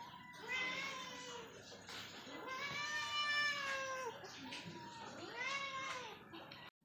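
Street cat meowing three times, the middle meow long and drawn out, typical of a hungry cat begging at feeding time.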